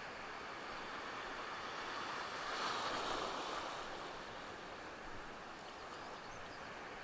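Ocean surf washing through the shallows, with a wave breaking and rushing in, loudest about three seconds in.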